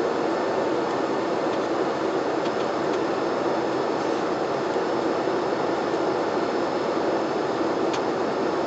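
Steady flight-deck noise of a Bombardier DHC 8-400 (Dash 8 Q400) turboprop airliner on final approach: its two Pratt & Whitney PW150A turboprops and the airflow blend into an even, unchanging drone, heard from inside the cockpit.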